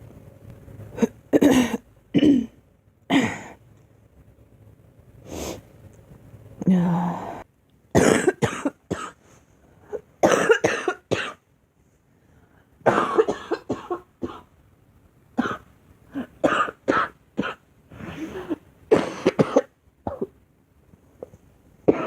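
A girl coughing over and over, in bouts of several coughs with short pauses between them.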